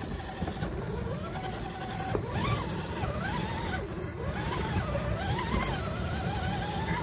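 RC rock crawler's electric motor and gear drive whining, the pitch rising and falling again and again with the throttle, with a low rumble underneath.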